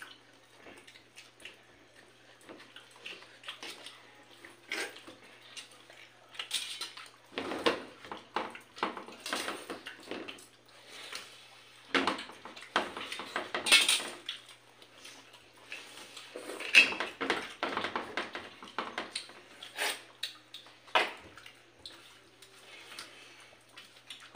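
Hands mixing rice and curry and scooping it from steel plates: irregular clinks and scrapes against the metal, loudest about a third and two-thirds of the way through.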